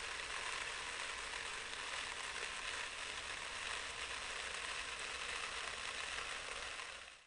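Coarse sand grains falling steadily onto a heap of sand, a dense hiss of tiny grain clicks. It fades and stops right at the end.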